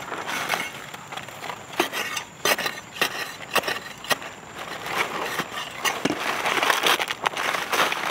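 A hand tool digging and scraping in dry, crumbly soil inside a small hole: irregular knocks and scrapes, busier and more continuous in the second half.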